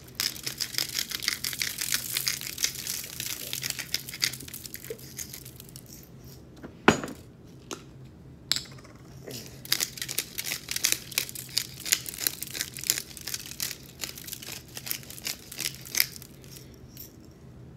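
Salt and pepper grinders being twisted over a tray of sweet potato fries: rapid gritty clicking in two long stretches, with one sharper click about seven seconds in.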